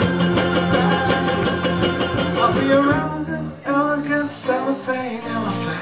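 Live indie pop band playing a song with bass and keyboards. The full sound drops out for a moment about halfway through and comes back sparser.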